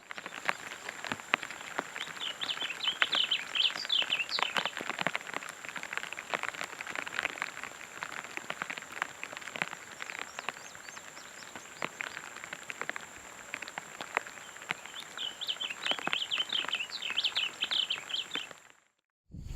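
Rain dripping with irregular scattered taps, while a songbird sings a quick run of repeated chirps twice, about three seconds in and again near the end.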